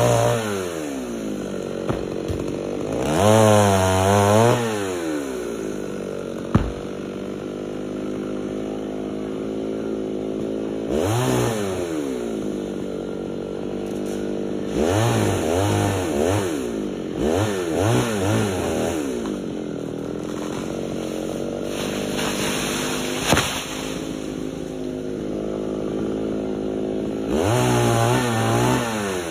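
Chainsaw engine idling and being revved up several times, each rev rising in pitch and dropping quickly back to idle. There are two sharp knocks, one about a quarter of the way in and one about three quarters of the way in.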